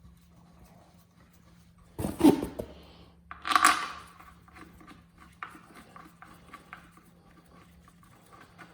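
Top bolts being put into the Volkswagen engine-to-transmission bellhousing by hand: two short, louder scraping bursts about two and three and a half seconds in, then light scattered clicks as the bolts go in easily.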